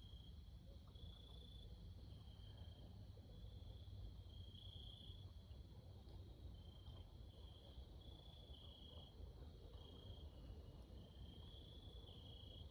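Faint crickets trilling at a high pitch in short bouts, one after another, over a low steady rumble.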